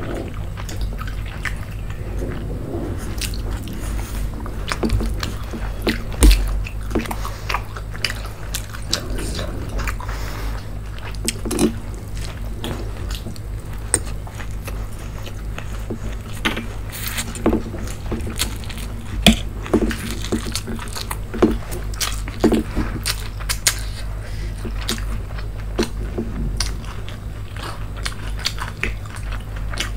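Close-miked eating: two people biting and chewing mouthfuls of saucy noodles and Manchurian, making a run of short, sharp mouth clicks and smacks, over a steady low hum.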